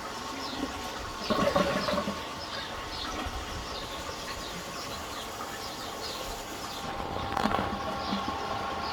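Fisher & Paykel MW511 washing machine draining, a steady hum with a faint high chirp repeating about twice a second, and brief louder sounds about a second in and near the end.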